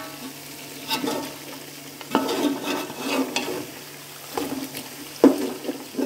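A ladle scraping and stirring through mutton and onions frying dry in a metal pot, in irregular strokes about once a second, over a light sizzle.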